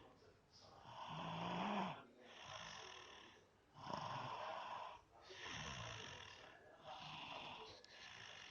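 A sleeping person snoring: a string of raspy snores, one on each breath, with the loudest about two and four seconds in and softer breaths between.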